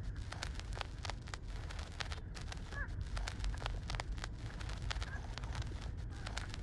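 Newborn puppies suckling at the teats: many small wet clicks and smacks, irregular and close together, over a steady low rumble. There is one brief high squeak a little under halfway through.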